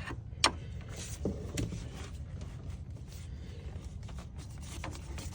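A sharp click about half a second in and a few lighter clicks and knocks from hand work on a radiator hose and its spring clamp, over a low steady hum.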